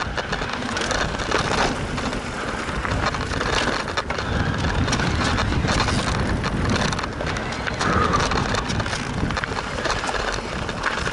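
Cannondale Habit 4 mountain bike riding fast down a dirt trail: tyres crunching over dirt and stones, with a steady run of small knocks and rattles from the bike.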